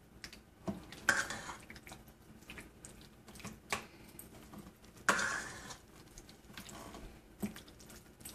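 Spatula stirring pieces of chicken in a thick yogurt marinade around a stainless steel bowl: irregular scrapes and light clinks against the metal, with wet squishing. The loudest scrapes come about a second in and about five seconds in.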